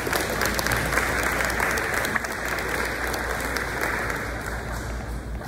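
Audience applauding, the clapping thinning out toward the end.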